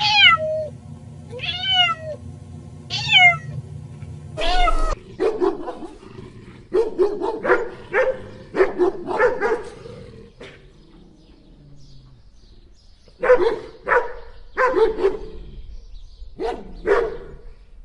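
A cat meowing three times, each meow falling in pitch, then a dog barking in quick runs of short barks, with a pause in between.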